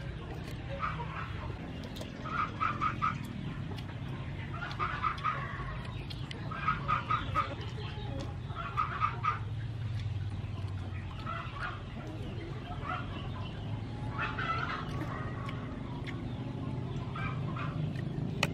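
Fowl clucking in short runs of three or four quick clucks, about every two seconds during the first half, then fainter, more scattered calls.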